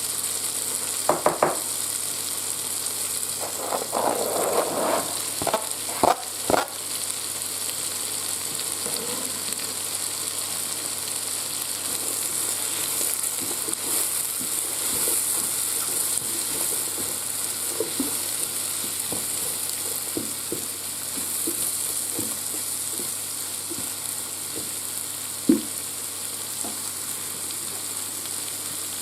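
Sliced mushrooms and chopped onions sizzling steadily in butter in a multicooker pot. A few short knocks and scrapes of a utensil come about a second in, a cluster follows a few seconds later, and a single sharp knock comes near the end.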